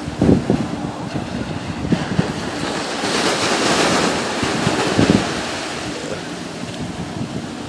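Small waves breaking and washing up on a sandy beach, their hiss swelling in the middle, with wind buffeting the microphone in a few short low bumps.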